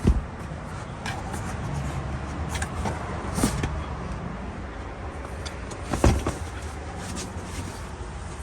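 Tesla Model 3/Y rear seat bottom being pulled up and lifted out of the car: thumps and knocks of the seat against the car body over a low steady rumble. There is one knock right at the start, one about three and a half seconds in, and the loudest about six seconds in.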